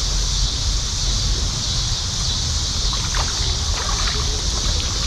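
Steady rushing of river water, an even hiss, with a low wind rumble on the microphone underneath.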